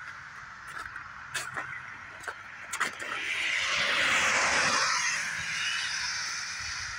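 A car passing by: its tyre noise swells about three seconds in and fades away again, after a few sharp clicks.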